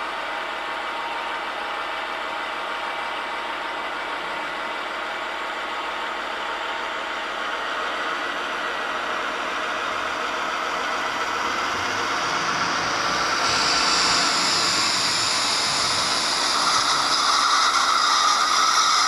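Sound decoder in an H0 model V60 diesel shunting locomotive playing its diesel engine sound through the model's small speaker, a steady idle-like running. The engine sound gets louder from about halfway, with a step up and a brighter, higher sound about two-thirds in, as the loco moves off again after the loco brake is released.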